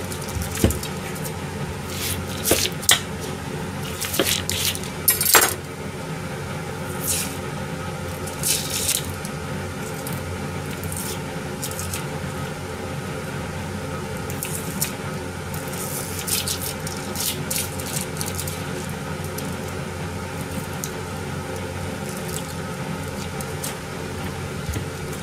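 Onions being cut with a kitchen knife on a plastic cutting board and their papery skins peeled. Scattered sharp knife taps, the loudest about five seconds in, and short dry rustles, over a steady kitchen hum with several fixed tones.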